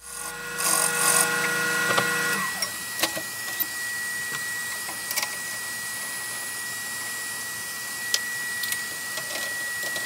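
Wood lathe running while a turning tool cuts a spinning wooden pen blank for about two and a half seconds. A steady high whine with scattered light clicks follows.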